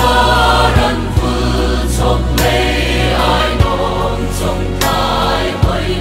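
Background music: a song with a choir of voices singing over a steady accompaniment.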